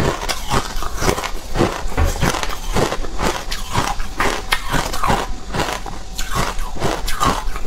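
Carbonated ice being chewed right at a lapel microphone: a steady run of crisp crunches, about two or three a second.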